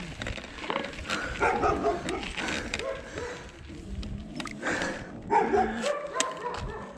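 Dog barking repeatedly, a run of short barks.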